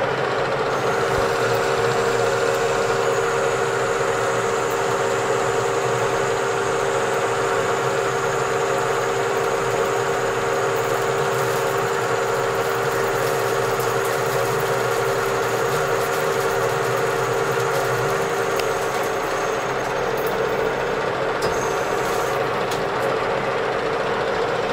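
Metal lathe running steadily, its motor and gearing giving a constant whine with a thin high tone above it. A faint crackle joins in about halfway through.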